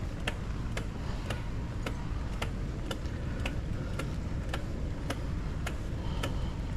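A mountain bike ticking regularly, about two clicks a second, as it is ridden, over a steady low rumble.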